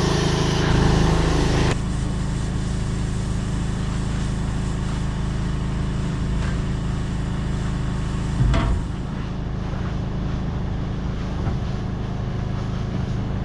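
Compressed air hissing from a blow nozzle, cutting off sharply about two seconds in, with an engine running steadily underneath throughout. A short loud burst comes about eight seconds in.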